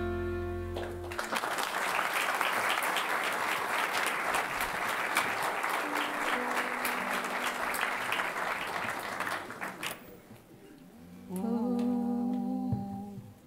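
Audience applauding for about nine seconds after a song's held final chord dies away, the clapping cut off abruptly. Shortly after, a brief snatch of music begins the next song.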